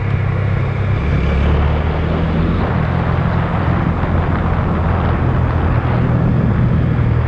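Motorcycle engine running under way, picking up speed, over a steady hiss of wind and road noise.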